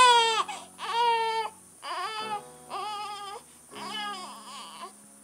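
Newborn baby, about two weeks old, crying in a string of short cries, about five, each less than a second long with brief gaps between.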